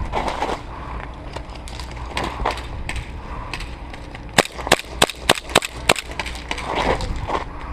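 Airsoft gun firing a quick string of about seven sharp shots in a second and a half, a little past the middle, over the shuffle and knock of a player moving on foot.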